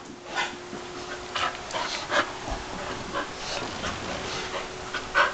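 Dogs at rough play, one giving short vocal calls several times, the loudest near the end.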